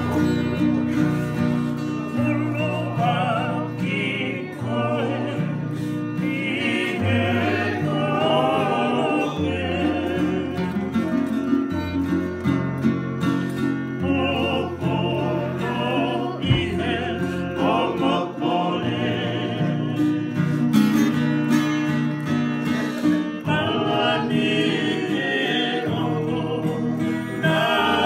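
Two acoustic guitars and a ukulele strummed together while men sing a song over them.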